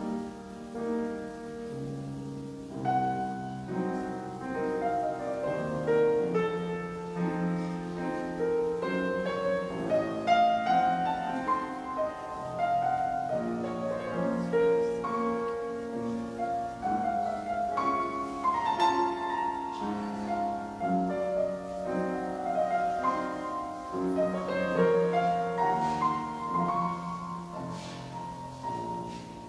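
Solo keyboard instrumental music: a slow melody over held chords.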